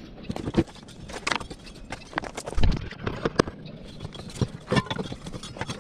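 Irregular clicks and knocks of hand tools and metal parts being handled on a zero-turn mower deck during a deck belt change.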